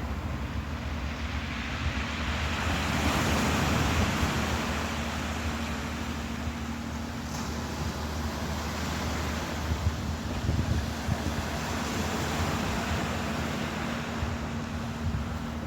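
Ocean waves surging and washing, with wind buffeting the microphone; one wave swells up about three seconds in and then subsides. A steady low hum runs underneath.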